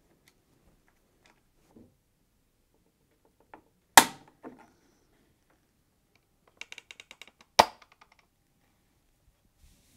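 Plastic retaining clips of a washing machine's display PCB housing snapping free as a flathead screwdriver levers them off the control panel. There are two sharp snaps, about four seconds in and near the end, and a quick run of small clicks just before the second.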